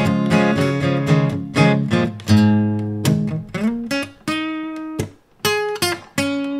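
Outro music on acoustic guitar: strummed chords for about the first three seconds, then sparser plucked notes.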